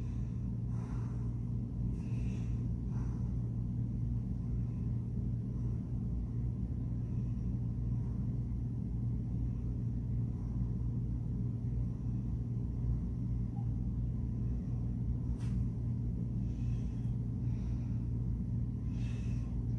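Steady low background hum, with a few faint soft sounds near the start and again near the end.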